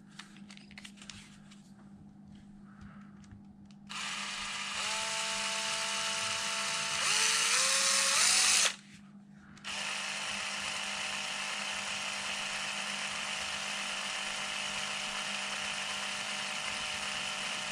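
Cordless drill spinning a Traxxas X-Maxx cushdrive spur gear assembly mounted on a bolt, to check the gear for wobble. After a few seconds of faint handling clicks the drill starts, and its whine steps up in pitch twice. It stops for about a second, then starts again and runs steadily.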